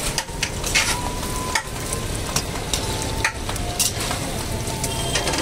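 Chicken pakoras deep-frying in a wok of hot oil, sizzling steadily: the first fry for chilli chicken. A metal spatula scrapes and knocks against the wok several times as they are stirred.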